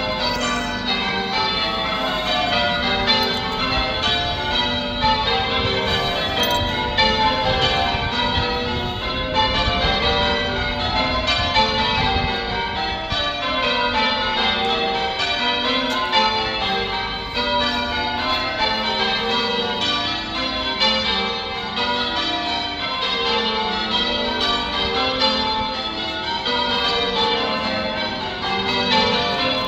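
Church tower bells ringing one after another in a steady, unbroken sequence. The strikes fall in repeating descending rows, as in English change ringing.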